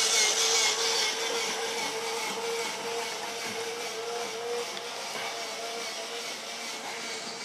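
Toy train's small electric motor whining steadily over a rushing hiss, slowly growing fainter.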